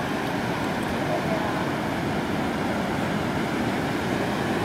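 Ocean surf breaking and washing up the shallow beach, a steady even rush.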